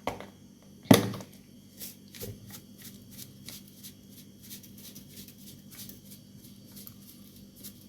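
Kitchen handling sounds: one sharp knock about a second in, then a run of faint light clicks and taps.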